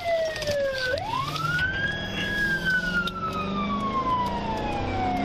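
Police car siren in wail mode, heard from inside the patrol car's cabin. The pitch sweeps up quickly about a second in, then falls slowly for the rest of the cycle.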